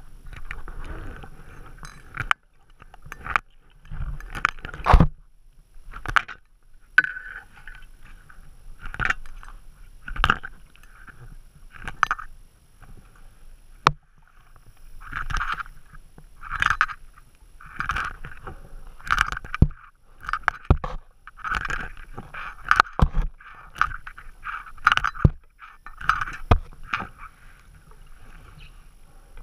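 A diving knife sawing and scraping at the mesh of a fyke net underwater: irregular rasping strokes every second or two, with sharp clicks and knocks in between.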